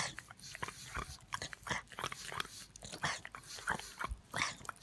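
Pug licking and mouthing a person's hand: a rapid, irregular run of small smacking clicks.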